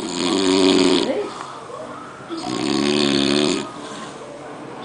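A man snoring heavily: two long snores, each just over a second, about two seconds apart, with a third beginning at the very end. Each snore is a low pitched rattle with a breathy hiss over it.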